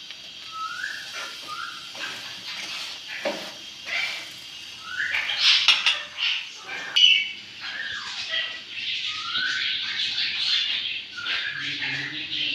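Birds chirping and squawking, many short rising and falling calls overlapping one another.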